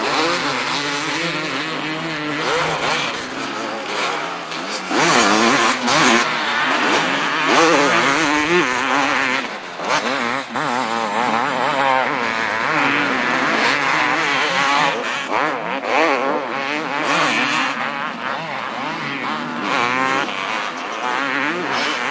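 250 cc two-stroke motocross bikes, among them a Honda CR250R, revving hard on the track. The engine pitch swings up and down again and again as they accelerate and back off.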